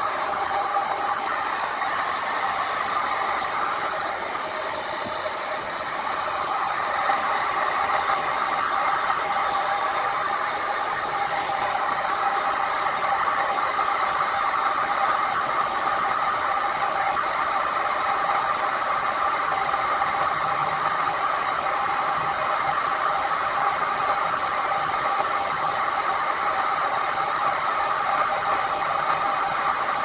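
Handheld electric heat gun blowing hot air steadily: an even fan-and-air rush with a steady hum in it.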